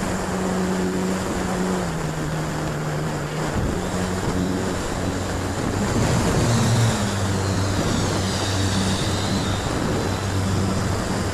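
Electric motor and propeller of an FT Storch RC plane running at low throttle, a steady hum over rushing wind. The hum drops in pitch about two seconds in and rises again about six and a half seconds in.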